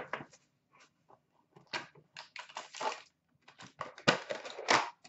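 Foil trading-card pack wrapper and cardboard box handled by hand: irregular crinkling, rustling and tearing as a hockey card pack is torn open, loudest near the end.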